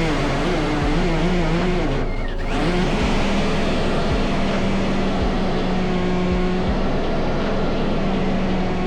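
Single lift turbine (ducted fan) of an RC hovercraft, driven by an 1100 kV brushless motor, running with a steady whine. It eases off briefly about two seconds in, then runs back up.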